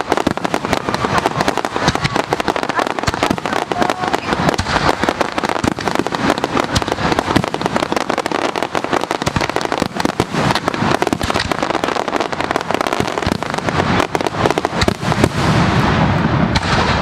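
Aerial fireworks going off in a continuous barrage of rapid bangs and crackles.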